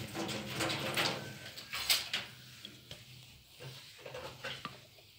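Wooden rolling pin rolling dough flat on a wooden board: a rolling rustle with light knocks and taps, busiest in the first two seconds with the sharpest knock about two seconds in, then a few scattered soft taps.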